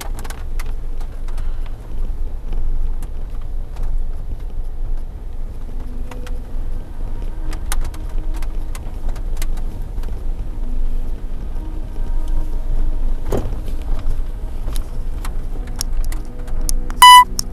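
Vehicle driving slowly on a dirt road, heard from inside the cab: a steady low rumble with scattered light clicks and rattles. Near the end, a short, loud electronic beep.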